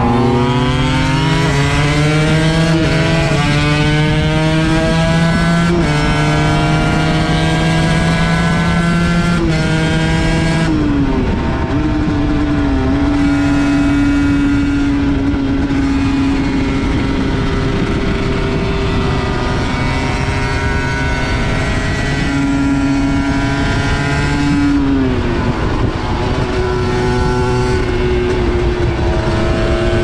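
2003 Aprilia MX125's single-cylinder two-stroke engine heard from on board while riding. It is loud throughout; its pitch climbs in steps over the first ten seconds or so, falls away about eleven seconds in as the throttle closes, runs fairly steadily, then drops again around twenty-five seconds before picking up.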